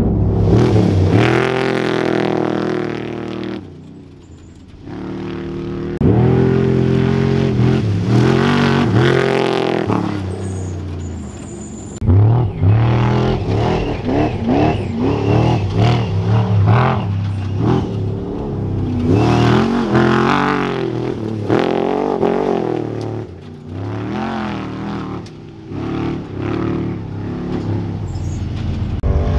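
Trophy Truck race engines revving hard and passing at speed. Pitch climbs and falls through the gears over several separate passes, each starting abruptly, with a brief quieter lull about four seconds in.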